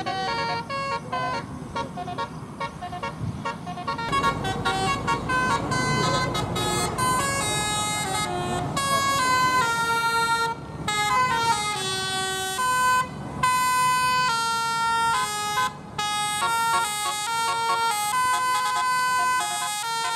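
Bus's Basuri telolet horn playing a fast melody of stepped notes. A low rumble joins about four seconds in and fades by about ten seconds.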